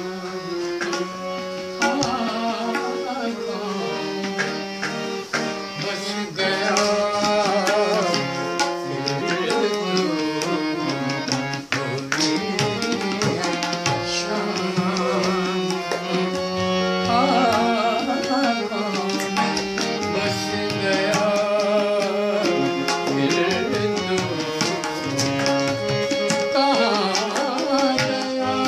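A man singing Indian classical vocal music with gliding ornaments, accompanied by harmonium and tabla strokes.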